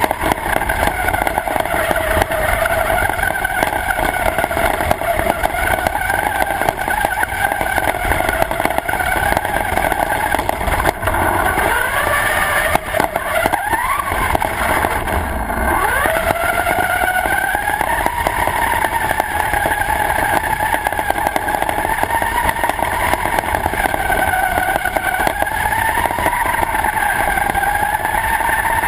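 RC car's motor whining continuously, its pitch wavering up and down with the throttle. About halfway through it drops away and then sweeps back up as the car accelerates again.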